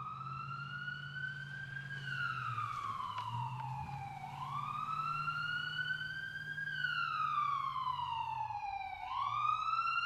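A siren wailing, rising quickly and falling slowly in long repeating sweeps, with a low hum underneath.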